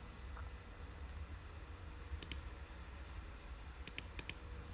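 Computer mouse clicking: three quick double-clicks, one about two seconds in and two near the end, over a low steady hum and a faint high whine.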